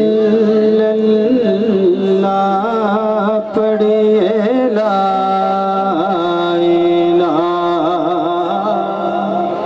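A man's voice singing an unaccompanied Islamic devotional recitation (naat/salawat) into an amplified microphone, holding long notes with wavering, ornamented bends.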